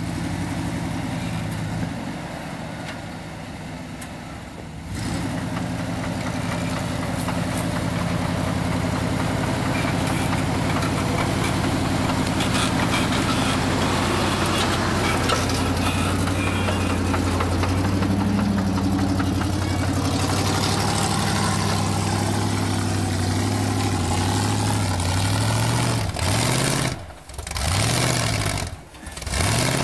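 Chevrolet K5 Blazer's engine running steadily under load on an off-road trail climb. Near the end the revs rise and fall in several swings, broken by two brief sudden drops.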